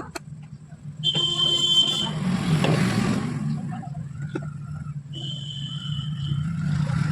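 A small motor humming steadily, with a high whine that sounds twice for about a second each, each time followed by a rushing, grinding noise.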